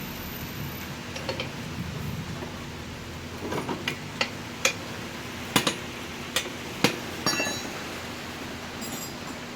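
Metal hand tools clinking against the scooter's rear axle nuts and hub: a string of sharp metallic clinks and taps, about eight over four seconds starting midway, the last one ringing briefly.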